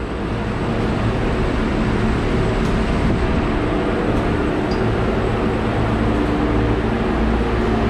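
Rows of refrigerated shipping containers' (reefers') refrigeration units running together: a loud, steady mechanical hum of compressors and condenser fans, with several steady tones over the whir.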